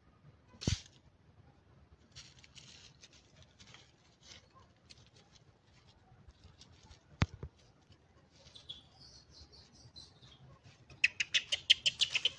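Monkey giving a rapid run of short, high-pitched squeaking calls, several a second, starting near the end. Before it come faint scattered rustles and two sharp knocks.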